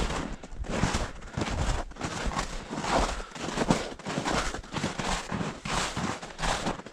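Footsteps walking through dry grass and brush: a repeated rustling crunch, about one to two steps a second.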